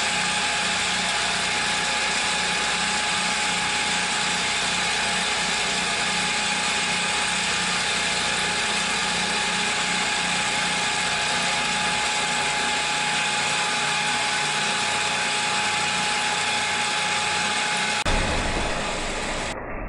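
PM727M milling machine under CNC control, cutting steadily with a half-inch three-flute carbide end mill at 1700 rpm on a 2D adaptive toolpath. The sound changes abruptly near the end.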